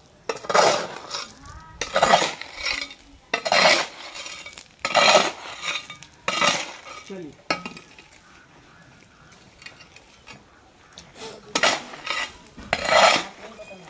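Steel hoe blade scraping and chopping through a heap of cement, sand and gravel on a concrete floor as concrete is mixed by hand. Gritty strokes come about every second and a half, pause for a few seconds, then two more come near the end.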